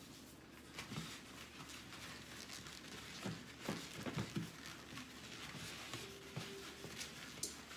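A paper towel being rubbed around the inside of a glass baking dish to grease it, making soft scuffing and crinkling. A few small knocks of the dish come about halfway through.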